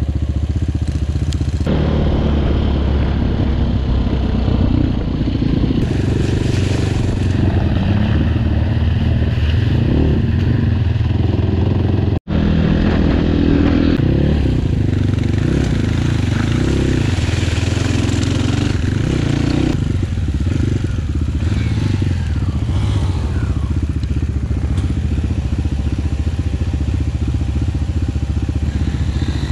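Off-road motorcycle engine running under load, heard close from a camera on the riding bike as it moves over a rough forest and muddy track, its revs rising and falling with the throttle. The sound drops out for an instant about twelve seconds in, at an edit cut.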